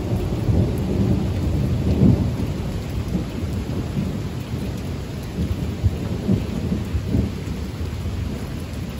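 Thunder rumbling on and off over steady rain during a severe thunderstorm; the rumble is loudest about two seconds in.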